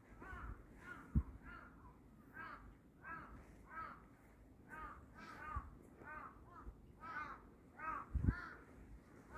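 A bird calling over and over, short rising-and-falling calls about two a second. Two low thumps, one about a second in and one near the end.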